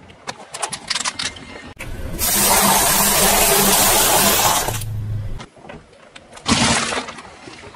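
A car tyre rolling over and crushing small objects: a quick run of sharp plastic cracks and snaps, then a longer stretch of loud crunching noise with a car engine running low underneath, and one sharp crack later on.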